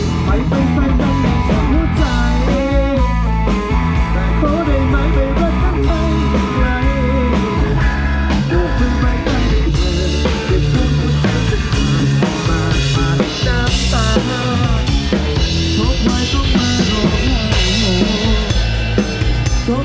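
Amplified rock band playing, with drum kit and bass prominent and a melody line bending in pitch above them.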